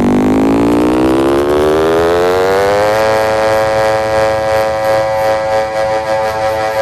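A loud electronic synth tone played through a competition car sound system, rising steadily in pitch for about three seconds and then holding one steady note.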